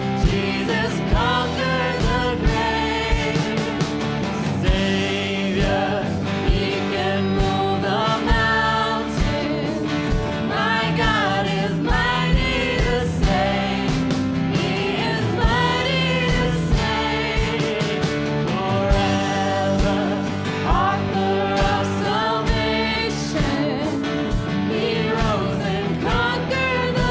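Contemporary Christian worship song: singing over a full band, with a steady drum beat.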